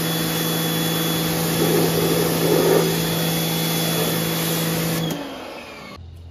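Kärcher K1900PS electric pressure washer running steadily, its motor and pump humming under the hiss of the water spray hitting the van's body. About five seconds in the motor winds down, its pitch falling, and the sound stops.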